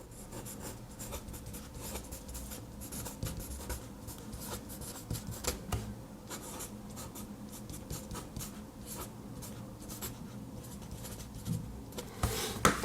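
Mechanical pencil with 0.7 mm HB lead scratching across paper in handwriting strokes, full of small ticks as the lead starts and lifts. A few louder knocks near the end.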